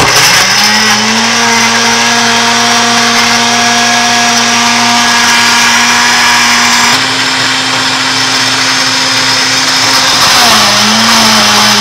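Countertop blender motor switching on abruptly and running, blending frozen fruit, bananas, raspberries, frozen yogurt and juice into a thick smoothie. Its steady whine steps up slightly in pitch about seven seconds in and wavers briefly near the end.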